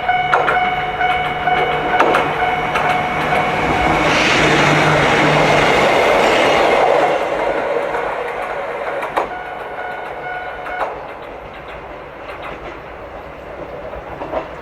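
Japanese level-crossing warning bell ringing while a Wakayama Electric Railway Kishigawa Line train passes, its wheel noise loudest about four to seven seconds in. The bell stops about eleven seconds in.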